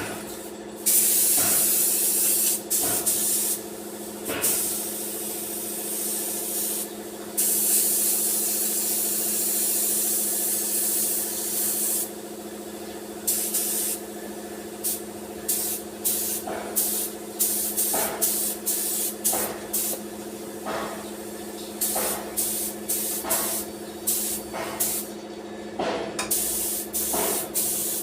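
Compressed-air spray gun hissing on and off as paint or primer is sprayed onto a repaired car bumper, over the steady hum of a running air compressor. The first hissing runs last a few seconds each; after about halfway they become short bursts roughly a second apart.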